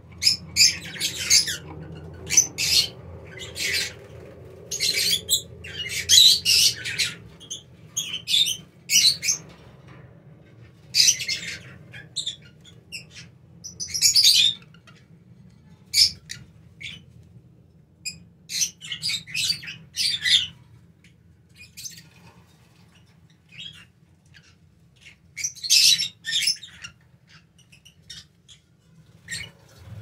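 A flock of Fischer's lovebirds calling: shrill chirps and squawks in irregular clusters, with quieter gaps between.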